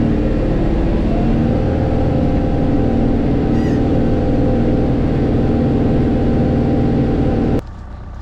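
Tractor engine and round baler running steadily at work, heard from inside the tractor cab: a loud, even drone with several held tones, one of which rises slightly about a second in. Near the end it cuts off suddenly to a much quieter low rumble.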